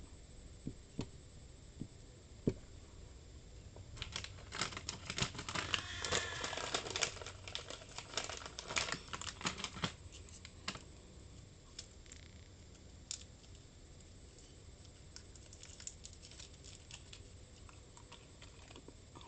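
Clicking and tapping at a computer desk: a few single clicks, then a dense run of rapid clicks and scratches from about four to eleven seconds in, with scattered clicks after.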